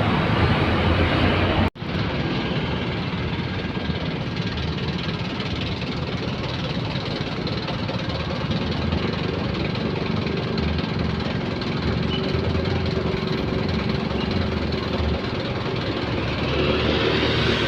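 Passing road traffic: vehicle engines running and tyre noise on the road, steady throughout, broken by a sharp cut about two seconds in.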